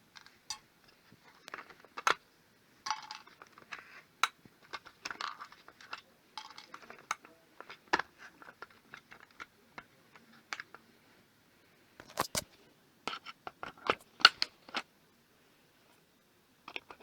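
Irregular clicks, knocks and short scrapes of plastic and metal parts being pried and pulled off a microwave while it is stripped for scrap, with a louder run of sharp clacks about twelve seconds in.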